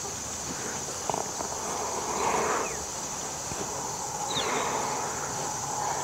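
Steady high-pitched chorus of insects such as crickets, with a few faint rustles and short chirps over it.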